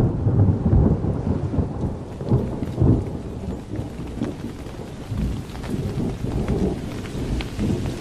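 Thunder rumbling over steady rain, the rumble swelling and fading in uneven waves.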